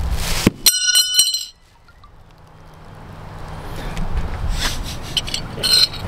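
Ninja Star throwing playing cards clinking together: four or so quick, bright ringing strikes about a second in. Then a rising rustle of handling and movement, and another short clink near the end.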